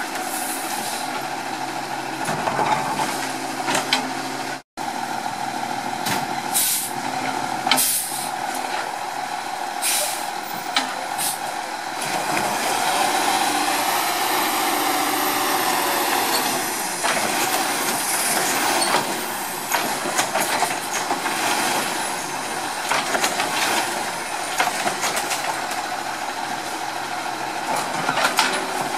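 Diesel engine of a 2008 Autocar WXLL garbage truck running steadily while the Labrie Automizer's automated arm and packer work, with scattered sharp knocks and clanks. Midway the engine note rises and falls as it is revved.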